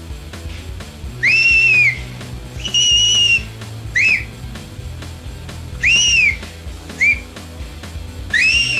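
Six loud, shrill whistles: four longer ones, most rising and then falling in pitch, and two short chirps between them. They are blown to provoke a Hallikar stud bull.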